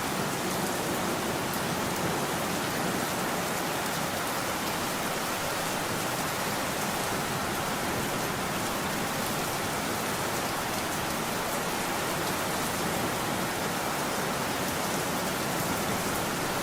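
Steady rain: an even hiss with fine drop ticks.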